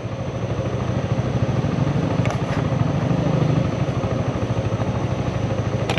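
Motorcycle engine running steadily while riding, with a fast, even pulse.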